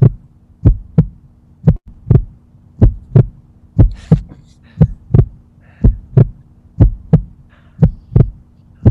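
Heartbeat sound effect: paired low thumps in a lub-dub pattern about once a second, over a steady low hum.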